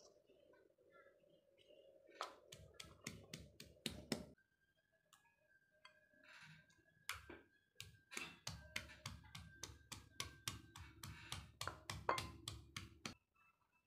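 Granite mortar and stone pestle pounding a chilli and garlic paste: a run of stone knocks, about three or four a second, that pauses a little after four seconds in and starts again around seven seconds, running until near the end.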